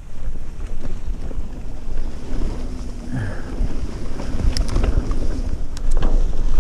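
Wind buffeting the mic of a mountain bike's POV camera, over the rumble of tyres on a wet gravel trail, with a few sharp rattles and clicks from the bike.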